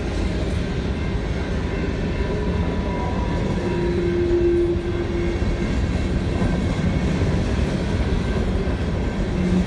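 Freight train of coal hopper cars rolling past at close range, the wheels on the rails making a steady rumble. A brief steady whining tone rises out of it about four seconds in and fades a second and a half later.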